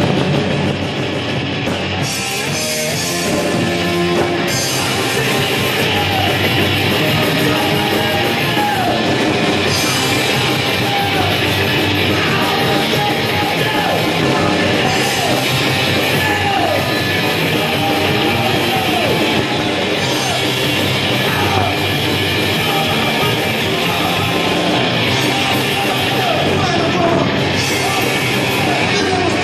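Punk rock band playing live: electric guitar, bass guitar and drums, with a man singing from about six seconds in.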